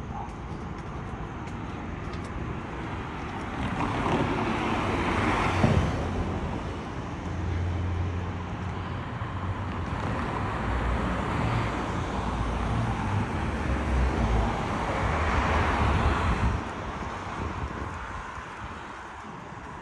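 Street traffic: cars driving past on the road, their engine and tyre noise swelling and fading about three times.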